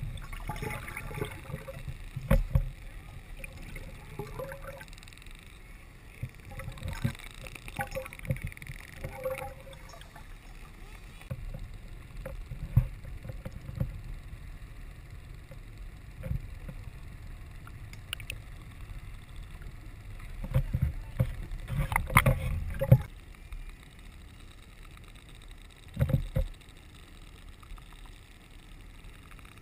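Muffled underwater water noise picked up by a submerged camera: a steady low rumble with irregular knocks and sloshing bursts, loudest in a cluster about two-thirds of the way through and once more a few seconds later.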